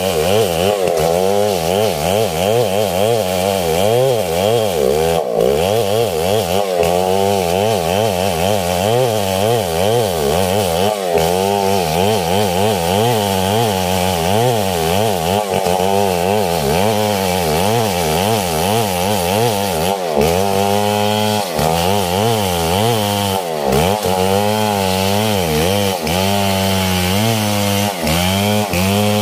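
Large Stihl two-stroke chainsaw running at full throttle while ripping lengthwise through a coconut trunk. Its engine note wavers up and down continuously as the chain bites and the load changes.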